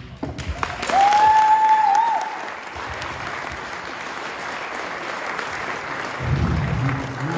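Wedding guests applauding after a speech, with one long, high cheer held over the clapping from about a second in.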